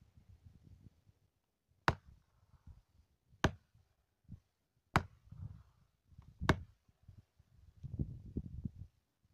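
Four sharp strikes, evenly spaced about a second and a half apart, with dull low thumps between them.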